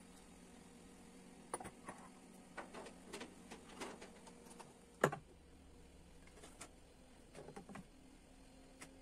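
Scattered light clicks and knocks of household objects being handled, irregular, with the loudest knock about five seconds in, over a faint steady hum.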